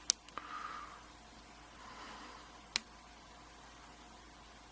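Single-pin picking in a Union five-pin oval pin-tumbler cylinder: a sharp metallic click just after the start and another a little under three seconds in, with faint scraping of the pick on the pins between.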